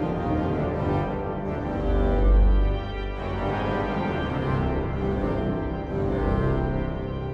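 Organ playing a quick, detached figure in the upper voice over long held notes in the bass.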